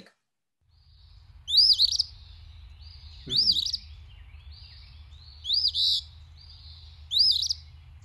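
Recording of an eastern phoebe singing: four short, high phrases that say its name, 'phoebe', spaced about two seconds apart, over a steady low background rumble.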